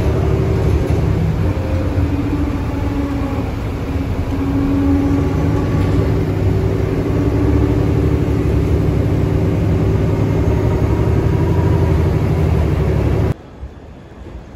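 Shuttle bus running, heard from inside the cabin: a steady low engine and road rumble with a faint hum that drifts slightly in pitch. It cuts off abruptly near the end, leaving a quieter background.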